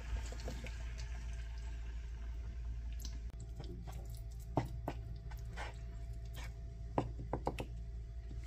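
Coconut milk pouring from a carton into a frying pan, then a wooden spoon stirring curry paste into the milk, with a few short knocks of the spoon against the pan, over a steady low hum.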